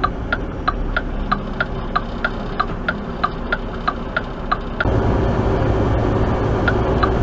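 Cab of a Mack semi truck on the road: the diesel engine runs steadily with a turn signal clicking about three times a second. About five seconds in, the engine gets louder and the clicking fades.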